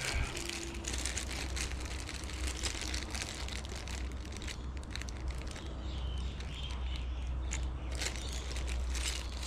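Small clicks, taps and rustles of dent-repair kit parts being handled, over a steady low hum.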